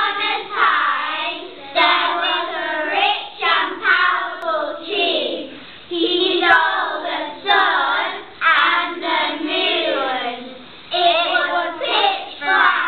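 A group of young children singing together in unison, in short phrases with brief breaks between them.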